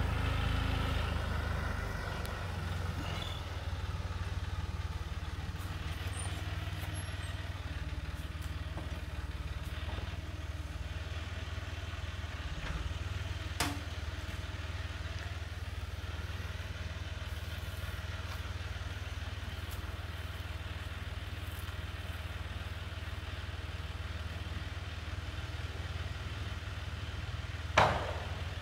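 Farm tractor with a front loader running, its engine easing off in the first two seconds and then idling steadily. A single sharp knock comes near the end.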